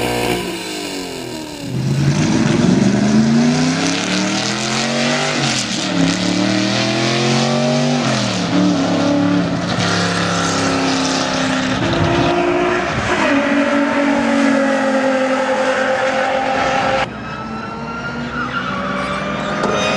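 Sports car engines accelerating, the pitch climbing and dropping back at each gear change several times over. About 17 s in it cuts abruptly to a fainter car engine revving up.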